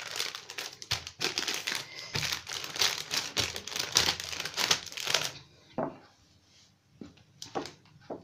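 A polythene bag crinkling and rustling as a wooden rolling pin rolls over it, pressing dough flat inside it on a wooden chopping board. The crinkling stops about five seconds in, and a few light taps follow.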